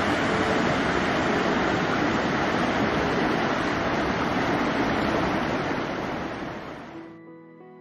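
Acquacheta waterfall: steady rushing of falling water that fades out about six to seven seconds in. Soft music with held notes comes in near the end.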